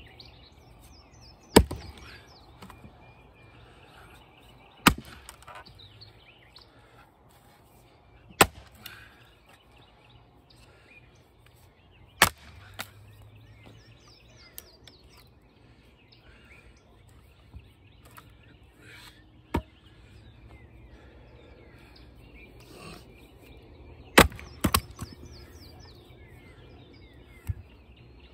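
Axe blows striking knotty crotch-wood firewood rounds: about seven sharp chops a few seconds apart, two of them in quick succession near the end. Small birds chirp between the blows.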